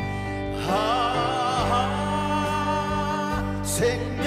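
A man singing a gospel song with band accompaniment, holding one long note with vibrato; a new sung phrase begins near the end.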